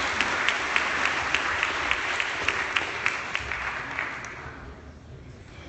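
Audience applauding at the end of a talk, with a few sharp individual claps standing out; the applause dies away about four to five seconds in.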